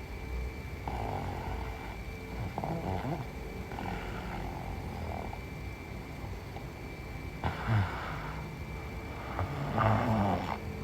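A woman snoring in her sleep, a series of breaths, the two loudest and harshest about seven and a half seconds and ten seconds in.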